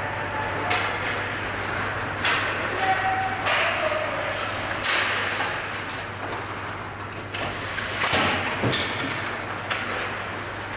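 Ice hockey play in an indoor rink: skate blades scraping on the ice, and sticks and puck clacking and thudding against the boards. It comes as several sharp noisy strikes a second or more apart, over a steady low hum.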